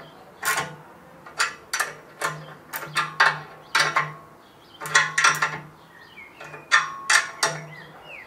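A 14 mm wrench tightening the nuts that fix the handle to a ceramic kamado grill's metal lid band: about a dozen irregular, sharp metallic clicks and clinks, each with a brief ring.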